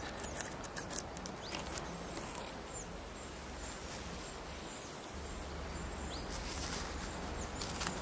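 Natural outdoor ambience: a steady soft hiss with scattered short, high bird chirps and a few light clicks and rustles.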